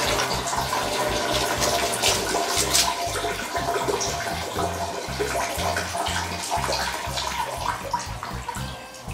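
A stream of liquid splashing into a toilet bowl, the sound of someone urinating, running continuously and tapering off near the end.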